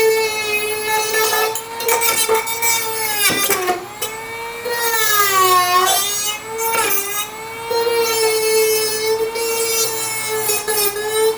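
Dremel rotary tool whining at high speed while grinding rust out of rotted sheet metal; its pitch sags twice as the bit bites into the metal under load, then climbs back.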